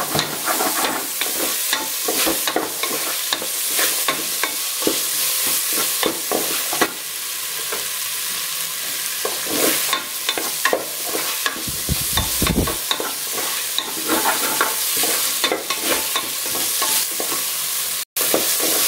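Sliced onions and green chilli frying in oil in an aluminium pressure cooker, sizzling steadily while a wooden spatula scrapes and stirs them against the metal base in repeated strokes.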